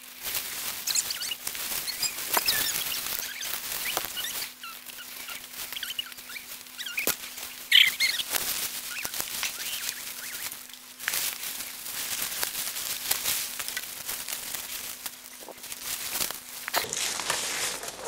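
Cherry-tree leaves, twigs and bird netting rustling and crackling in quick, irregular bursts as a person works inside the tree, pulling the net together by hand. A few short bird chirps sound in the background.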